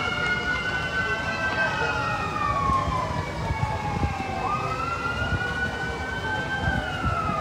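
Police siren on a slow wail: the pitch climbs, holds high, then slides down over a few seconds, jumps back up about four and a half seconds in and slides down again near the end. A low rumble runs beneath it.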